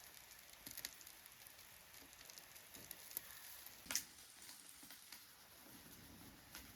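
Near silence with faint scattered clicks and crackling, and one sharper click about four seconds in.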